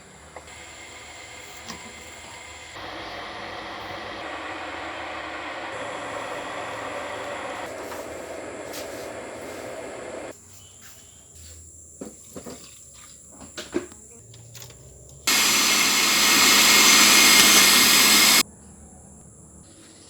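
Electric kitchen blender running, blending the juice ingredients, in two runs. The first is long: it steps up in level about three seconds in and stops abruptly around ten seconds in. After a pause with a few light knocks, the second is a shorter, much louder run of about three seconds that also starts and stops abruptly.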